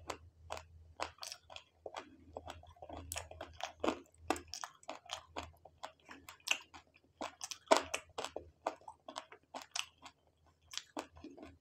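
A person chewing and eating noodles close to the microphone: a continuous run of irregular sharp mouth clicks and smacks.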